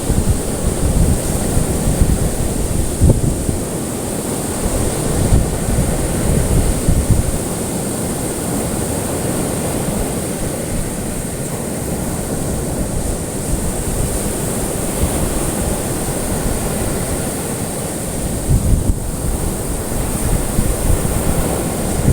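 Ocean waves washing on a shore in a continuous surging rush with uneven low swells, under a steady high hiss.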